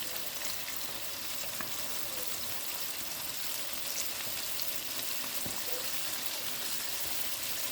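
Flour-coated chicken wings deep-frying in hot oil: a steady sizzle with scattered small pops.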